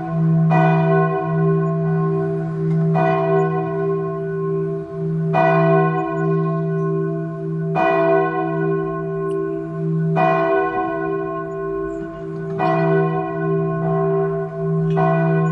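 A large church bell tolling slowly, struck about every two and a half seconds, each stroke ringing on into the next over a steady low hum.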